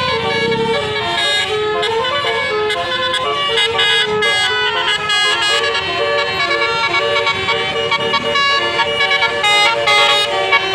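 Bus 'telolet' horn, a set of air horns playing a tune: several notes sound together and step from one pitch to the next.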